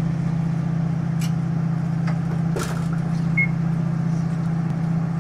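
Steady low drone inside the carriage of a DR3000 diesel multiple unit, from its diesel engine running. A light knock comes about two and a half seconds in, and a short high beep follows just after.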